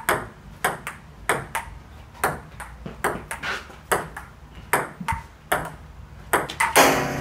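Table tennis rally on a Butterfly Playground outdoor table: the plastic ball clicks off the bats and the tabletop in a quick, uneven run of sharp ticks, about three a second. A louder noisy burst comes near the end.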